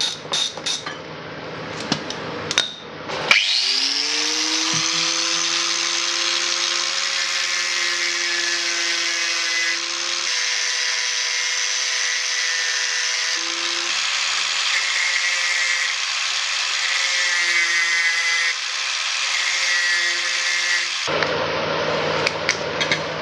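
Handheld electric power tool spinning up about three seconds in and running steadily for roughly eighteen seconds, cutting into a seized bolt with a stripped thread. A few handling clicks come before it starts, and it stops sharply near the end.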